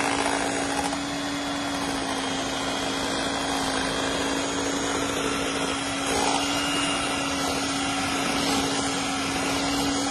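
Electric hand mixer running at a steady speed, its twin beaters whisking batter in a glass bowl: a continuous motor hum with an even whir over it.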